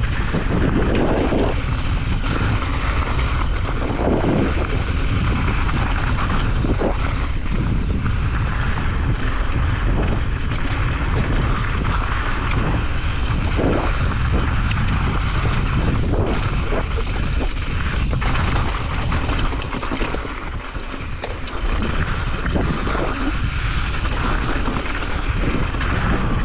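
Wind buffeting the action-camera microphone while a Specialized Kenevo SL e-mountain bike rolls fast down rough gravel singletrack: steady tyre crunch on loose stones with frequent knocks and clatter as the bike hits rocks. The noise eases briefly about three-quarters of the way through.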